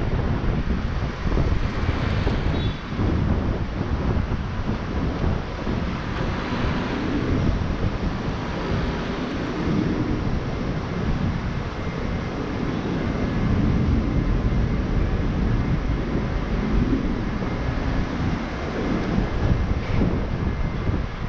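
Wind buffeting an action camera's microphone during a walk: an uneven low rumble throughout, with a faint steady hum underneath.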